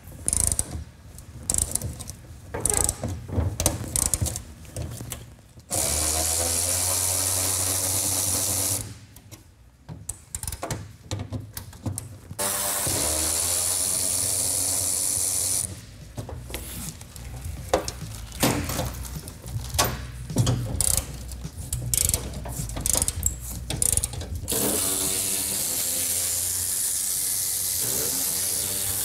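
Snap-on cordless electric ratchet turning a socket on a bolt, running in three spells of a few seconds each, the last near the end, with clinks and clatter of tools and metal parts between the runs.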